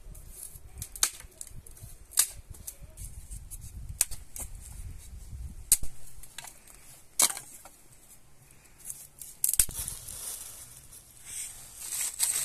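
Dry branches and twigs snapping, one sharp crack every second or two, among rustling brush and footsteps on the slope. Near the end there is a steady rustle of clothing and dry leaves.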